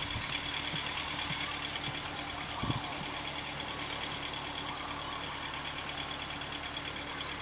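A steady mechanical hum like an idling engine, with one dull knock about two and a half seconds in.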